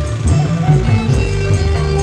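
Kecimol band music, the Sasak procession ensemble of Lombok, playing a song. A moving bass line runs under the melody, a melody note is held from about a second in, and light cymbal ticks keep the beat.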